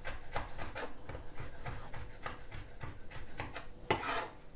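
Kitchen knife finely mincing chili pepper on a wooden cutting board: quick, light, rapid knocks of the blade on the wood. Near the end comes one louder, longer scrape as the blade drags across the board.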